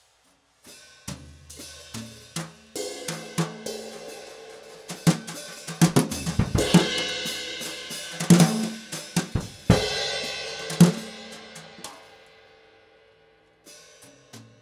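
Instrumental music with a drum kit: cymbals and hi-hat struck over low sustained notes. It comes in about a second in, grows louder, then dies away near the end before starting up again.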